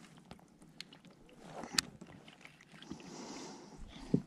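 Scattered light knocks and clicks of gear against a fishing kayak on the water, the sharpest about two seconds in and another just before the end, with a brief soft hiss a little after three seconds.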